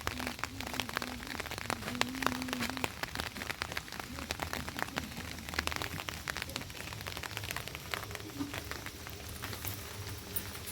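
Rain falling, its drops striking a hard surface in dense, irregular ticks over a steady hiss. A faint voice is heard in the first few seconds.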